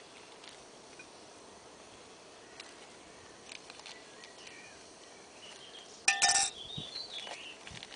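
A metal spoon clinking inside an enamel camping mug as a brew is stirred: a short ringing burst about six seconds in, after a few faint clicks.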